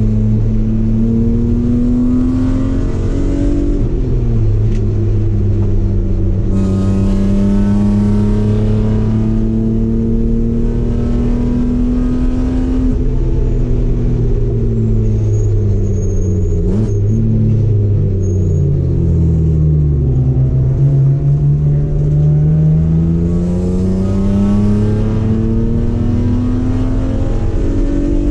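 Race car engine at full throttle on track, holding high revs, then falling in pitch through the middle with a few short blips before climbing steadily again near the end, as it brakes for a corner and accelerates out.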